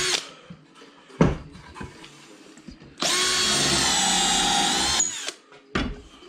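A power drill runs steadily for about two seconds in the middle. There is a sharp knock about a second in and another near the end.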